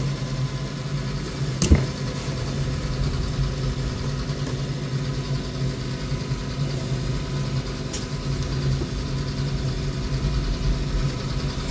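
Steady low machine hum, with one sharp click a couple of seconds in.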